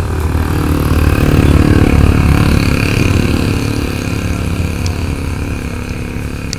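A motor vehicle's engine running close by as it passes on the road, a low rumble that swells to its loudest about two seconds in and then slowly fades.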